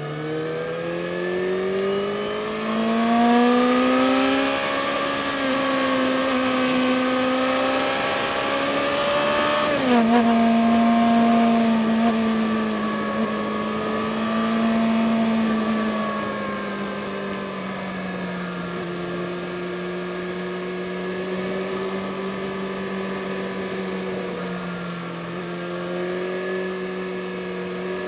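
Yamaha Fazer FZ6 S2's 600 cc inline-four engine running under load on the climb, rising in pitch over the first few seconds. About ten seconds in the pitch drops suddenly, as at an upshift, then it settles to a steady cruise. Wind hiss runs over the microphone.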